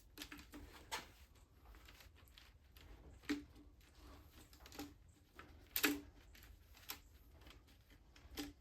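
Irregular light metallic clicks and knocks of hand tools and engine parts as bearing caps on a truck engine's bottom end are worked loose. Two sharper knocks stand out, about a third and about two-thirds of the way through.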